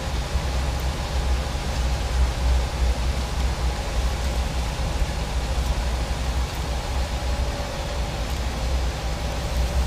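Steady low rumble of a semi truck's diesel engine and road noise at highway speed, heard inside the cab.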